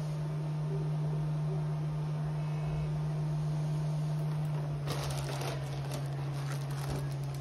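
A steady low hum, with a few brief rustles and clicks about five seconds in as the sensor tubing and a plastic bag are handled.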